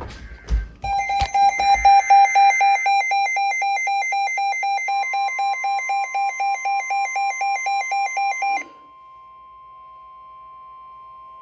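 Weather radio receiver's alert alarm beeping rapidly, about four beeps a second, for roughly eight seconds, signalling an incoming warning. About halfway through, the broadcast's steady warning alarm tone comes in underneath and carries on alone after the beeping cuts off.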